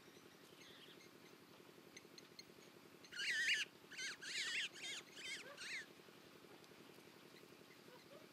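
A bird calling: a quick run of about six short, wavering high-pitched calls about three seconds in, the first the longest and loudest, over a faint steady background.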